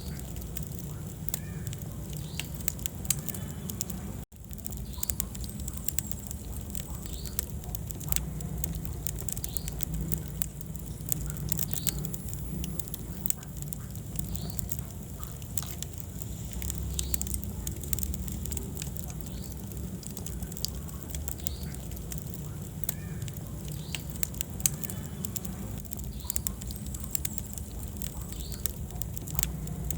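Wood fire burning in a fireplace: a steady low rumble of flames with frequent small, irregular crackles and pops. The sound cuts out for an instant about four seconds in.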